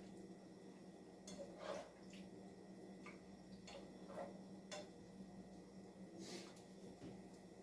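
Near silence: a steady low hum with faint, scattered clicks and pops, about one a second.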